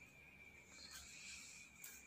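Near silence: faint room tone, with a faint tick near the end.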